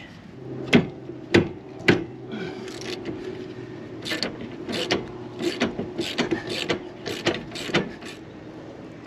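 Socket ratchet clicking in about a dozen short back-strokes, a few at first and then a quicker run, as it loosens the nut on a trailer leaf-spring wet bolt.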